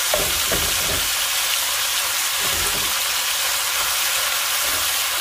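Cubes of beef chuck sizzling steadily in hot oil as they brown in an enameled Dutch oven, with a wooden spoon scraping and pushing the meat around a few times.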